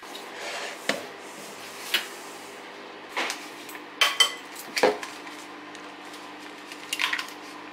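Eggs knocked against the rim of a glass mixing bowl: a scattering of sharp clinks and knocks, the loudest cluster about four to five seconds in, over a faint steady hum.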